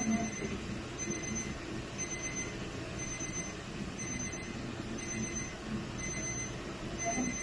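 Electronic beeper sounding a steady series of short high beeps, about one half-second beep each second, over a low background din.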